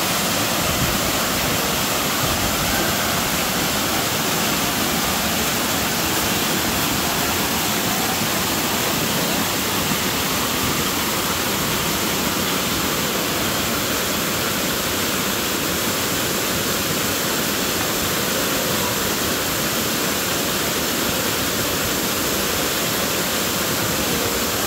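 Steady rush of falling water, an even, unbroken noise with no pitch or rhythm.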